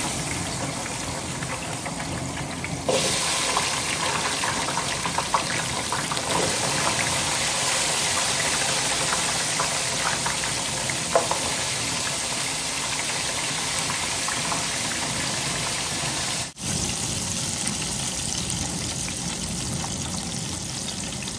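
Hot oil in a large aluminium pan deep-frying crinkle-cut fries, a dense, steady sizzle. It gets louder about three seconds in, with a couple of brief pops.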